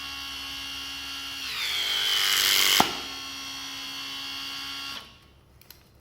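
Makita TC300D cordless hydraulic crimping tool running a crimp cycle. Its motor whines steadily, then drops in pitch and grows louder as the load builds. A sharp click comes near the middle, after which the motor runs on lighter for about two seconds and stops.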